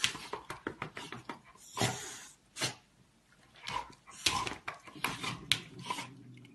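A dog making short sounds as it spars playfully with a cat, mixed with quick knocks and scuffles.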